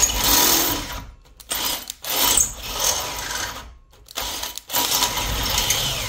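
Cordless drill driving a Ruko Ultimate Cut step drill bit through the wall of a square steel tube, with a grinding cut. It runs in several bursts of up to about two seconds with short stops between. The drill is too small for the job and labours.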